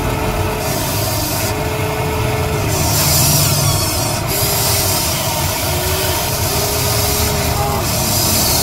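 Huina 580 RC excavator's electric motors running as the boom and arm move, with a whine that rises, holds and falls away about five times, each lasting up to about a second, over a steady low whirr.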